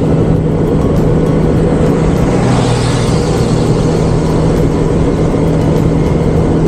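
Motorcycle cruising at a steady speed: a steady engine drone under heavy wind and road noise on the rider's camera microphone.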